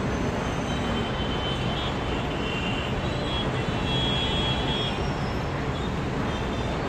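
Steady rumble of road traffic from the street, with faint high-pitched tones coming and going above it.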